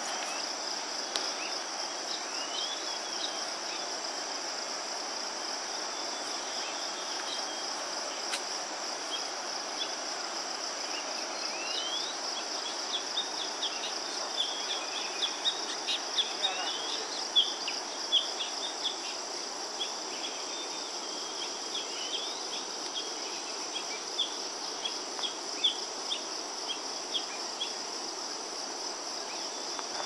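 Steady, high-pitched, rapidly pulsing chorus of insects. Through the second half, many short chirps, likely birds, sound over it.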